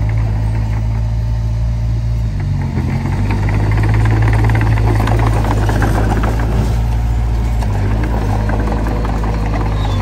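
Komatsu D20P bulldozer's diesel engine running steadily under work. The engine note dips briefly about two and a half seconds in, then grows louder as it takes load. A dense clatter of knocks comes around five to seven seconds in.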